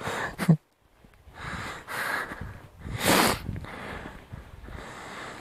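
Several short bursts of rushing air noise on the helmet-mounted microphone of a moving motorcycle, the loudest about three seconds in, with the motorcycle running faintly underneath. The sound cuts out completely for a moment about half a second in.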